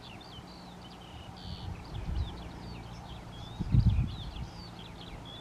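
Small birds chirping and twittering busily, with low rumbling buffets, the loudest a little under four seconds in.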